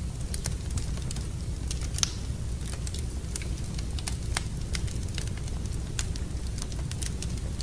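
Wood fire crackling in a fireplace: irregular sharp pops and snaps, one louder pop about two seconds in, over a steady low rumble.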